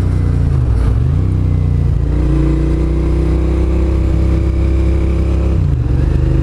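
Motorcycle engine pulling under acceleration while riding. Its pitch drops and climbs again about a second in and near the end, as at a gear change, and rises slowly in between.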